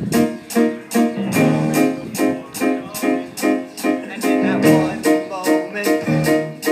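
Live band playing an instrumental passage: a drum kit keeping a steady beat of about three strokes a second under repeated keyboard chords.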